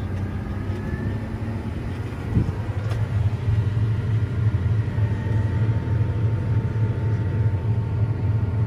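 Tractor engine running steadily, heard from inside the cab, driving the auger of an auger wagon as it empties out. The low engine note gets stronger about two and a half seconds in and then holds under the load.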